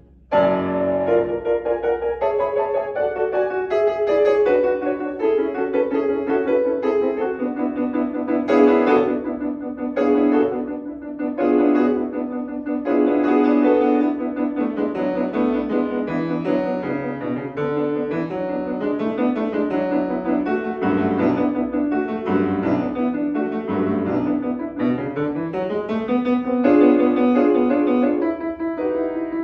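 Grand piano played solo, a lively classical piece with a repeated low note under a moving melody.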